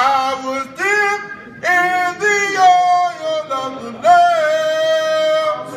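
A single voice singing unaccompanied, in slow phrases that bend in pitch, ending on one long held note.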